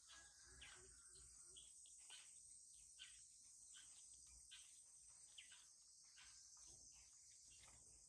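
Near silence: a faint, steady, high-pitched insect chorus, with scattered small soft clicks.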